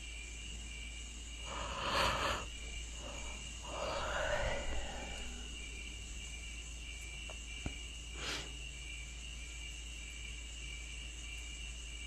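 A person yawning: a noisy breath in, then a longer sighing exhale that falls in pitch, and another short breath about eight seconds in. A faint steady high tone and low hum run underneath.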